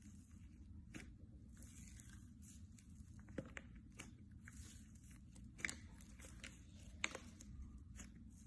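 Slime being worked by hand: faint, irregular little clicks and crackling pops, with a few sharper pops.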